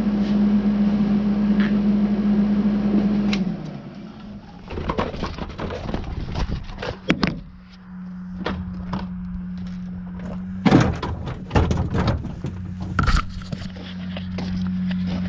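MIG welder arc buzzing steadily while a wheel cap is welded onto a shop vac, stopping about three and a half seconds in. Then a string of knocks and thumps from the camera being handled, over a steady low hum.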